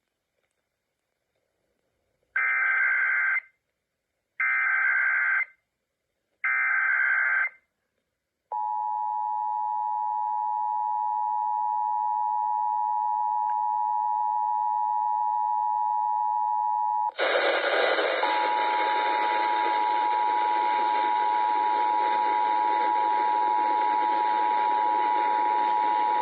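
Emergency Alert System test tones off a radio: three short bursts of SAME digital data, then the steady two-tone EAS attention signal for about eight seconds. About 17 seconds in it cuts to a hissy, static-laden signal carrying a single steady tone.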